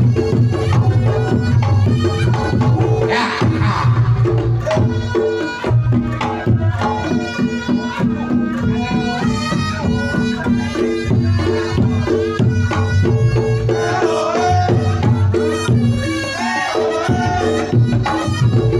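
Reog Ponorogo gamelan music in the srampat style. Kendang drums beat a dense rhythm over steady ringing gong tones, and a wavering melody rises above them about three seconds in and again near fourteen seconds.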